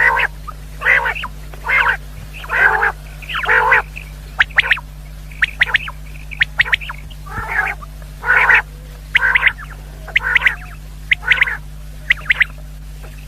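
Common quail calling: harsh, rasping calls repeated roughly once a second, with a few short, thin high pips in between. A steady low hum runs underneath.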